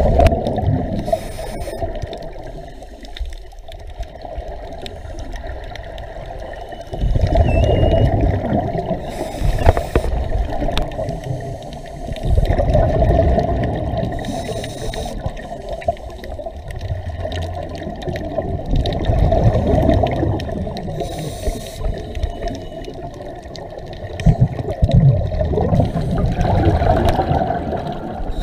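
Underwater scuba-diving sound: the muffled rushing and bubbling of divers' exhaled bubbles from their regulators. It comes in strong surges every five to seven seconds, one for each breath.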